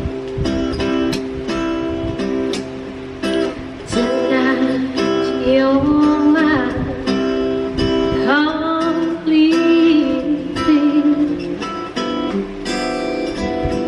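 Karaoke through a V8 sound card: an acoustic guitar backing track with a woman singing over it from about four seconds in until near the end. It plays through a small speaker, which makes the sound a little cracked.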